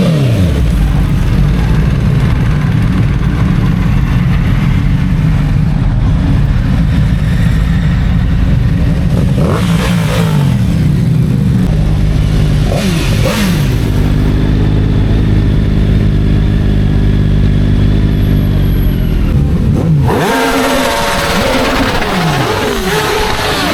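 Motorcycle engines running, revving and passing by one after another, their pitch dropping as each goes past. A steadier engine drone holds for several seconds past the middle. Near the end several bikes rev and pass at once.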